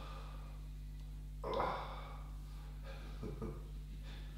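A person's heavy breath out or sigh about a second and a half in, then a few fainter breaths, over a steady low hum. It is the patient's reaction to painful sustained pressure (muscle inhibition) on the back.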